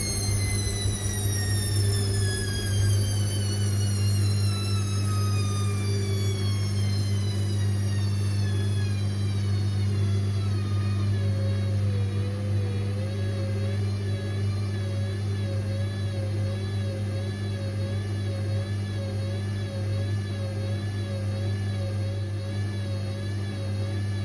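Indesit IWC6165 washing machine running, with a steady low hum throughout. The drum motor's whine falls in pitch over the first ten seconds or so as the drum slows, then settles into a steady, slightly wavering whine.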